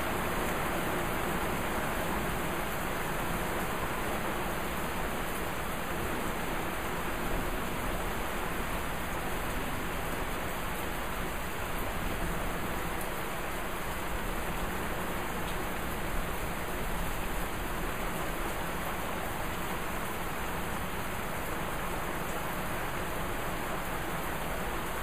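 Heavy rain pouring steadily during a thunderstorm, an even, unbroken hiss of downpour.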